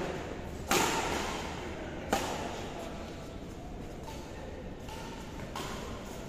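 Badminton rackets striking a shuttlecock in a rally: three sharp hits, the first the loudest, with a gap of about a second and a half and then about three and a half seconds. Each hit rings on in the echo of a large hall.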